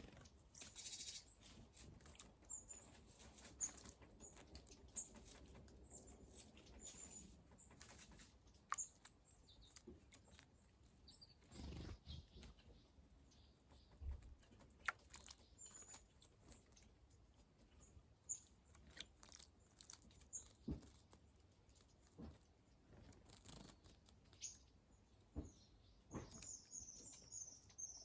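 Small wild birds at a bird bath: faint short high chirps scattered throughout, with a quicker run of chirps near the end, and scattered brief clicks and taps.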